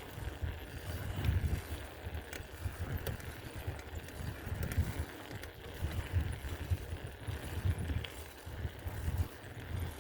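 Riding a bicycle: wind gusting on the microphone as a rumble that rises and falls, with a few light clicks and rattles from the bike.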